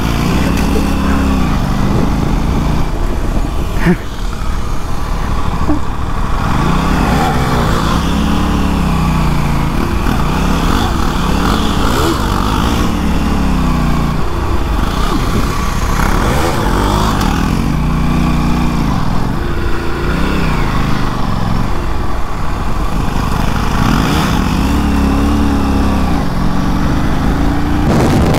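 Motorcycle engine running under way, its pitch rising and falling in repeated swells every few seconds.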